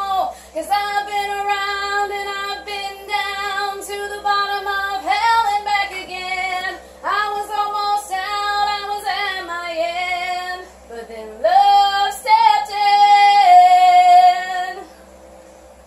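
A woman singing a wordless closing run of held notes that step up and down in pitch, ending on a long held note near the end.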